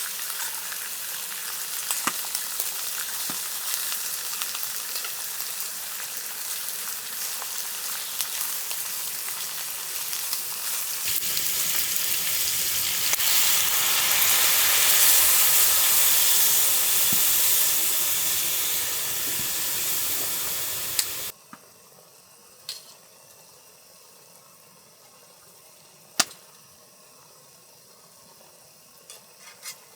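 Sukiyaki sizzling and crackling in a pan, growing louder about a third of the way in. It cuts off abruptly about two-thirds through, leaving a quiet background broken by a few sharp single clicks.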